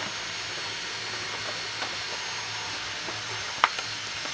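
A steady hissing rush of shop noise, with a few light clicks and one sharp tap about three and a half seconds in.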